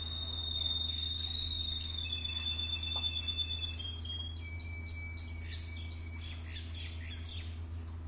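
Canary singing: long held whistled notes, then a run of quick repeated notes, about two or three a second, in the second half. A steady low hum runs underneath.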